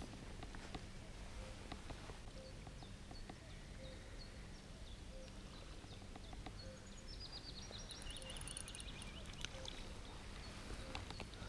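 Faint outdoor birdsong: scattered high chirps, a soft short low note repeated about once a second, and a burst of quick, busier high song about two-thirds of the way through.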